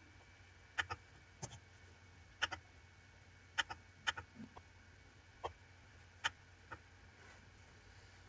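Computer mouse buttons clicking: a series of sharp clicks, several in quick pairs like double-clicks, as folders are opened.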